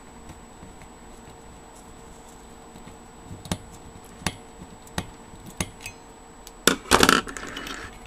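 Screwdriver working a screw out of the finned aluminium heat sink of a thermoelectric (Peltier) cooler module. A few sharp metallic clicks come about a second apart, then a louder burst of clinking and rattling near the end as the screw comes loose.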